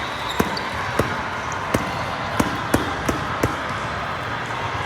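Volleyballs smacking off hands and the hardwood gym floor: about seven sharp hits in the first three and a half seconds, over the steady din of a busy gymnasium.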